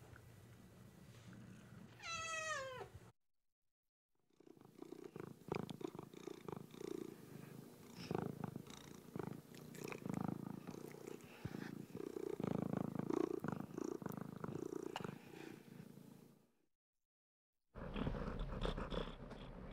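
House cats: a single meow falling in pitch about two seconds in, then, after a short silence, a long stretch of low, uneven, purr-like rumbling that breaks off near the end.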